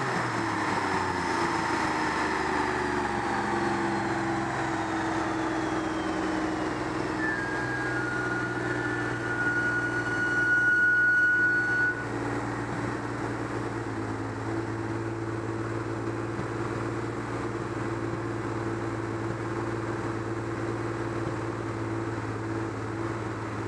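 Porsche 914/6's air-cooled flat-six idling on a chassis dyno just after a full-throttle pull, its pitch falling over the first few seconds as the rollers spin down. A high whine rises in level over about four seconds and cuts off sharply around twelve seconds in. Steady hiss underneath.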